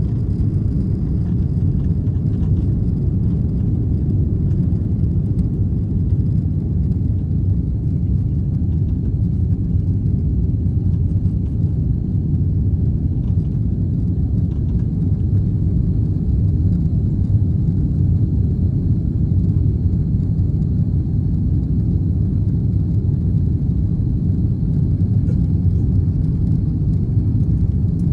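Cabin noise of an Airbus A330-300 taking off and climbing out: the steady low rumble of the jet engines at takeoff thrust.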